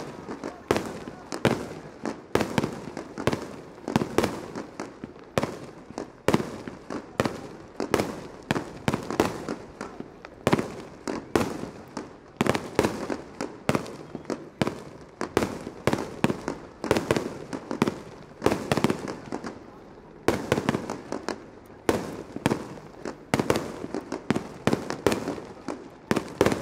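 Aerial firework shells bursting one after another, a dense string of sharp bangs, often several a second.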